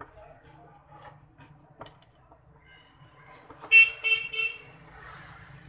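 A vehicle horn honks three short times in quick succession, a little past halfway through. Faint clicks of wires and plastic parts being handled come before it.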